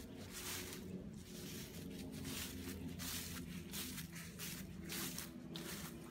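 Footsteps crunching through dry fallen leaves, about two steps a second.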